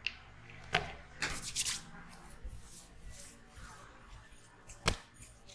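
Hands slapping and tapping on a head during a head massage: single sharp slaps, a quick run of them about a second in, and one more near the end, with soft rubbing between.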